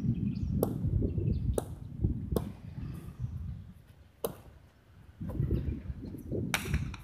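Sharp cracks of a hard jai alai pelota striking the frontón's wall and floor and slapping into the wicker cestas, five in all at uneven intervals over a low rumble.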